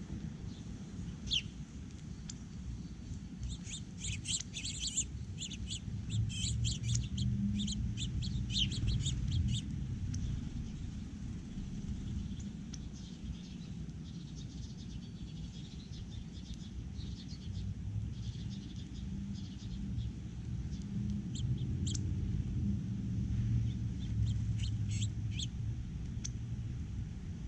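Small songbirds chirping at a feeder: many short, high chirps in busy clusters, densest in the first third and again near the end, over a steady low rumble.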